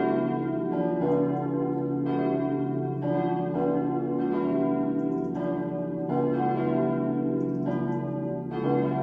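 Full peal of four cast steel church bells from 1922, tuned B, D, E and F sharp, swinging and striking in overlapping turns, a new strike roughly every second over continuous ringing. The uploader finds the peal poorly voiced, with the deep B bell standing out, and says the D bell's clapper has long struck mostly on one side only.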